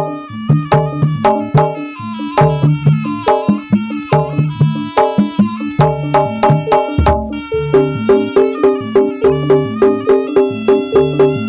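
Jaranan music: a Javanese traditional percussion ensemble of drums and struck pitched percussion playing a fast, steady beat, with a deep low stroke about seven seconds in.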